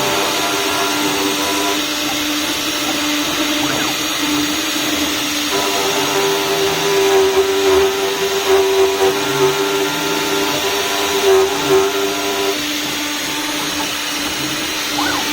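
CNC router running with a steady whine over a constant hiss; about a third of the way through a second, higher whine joins and gets louder, then drops away near the end, typical of the spindle loading up as the bit cuts into the wood.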